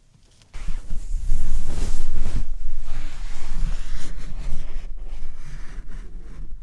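Wind buffeting the microphone in gusts, cutting in suddenly about half a second in, heaviest at first and then slowly easing.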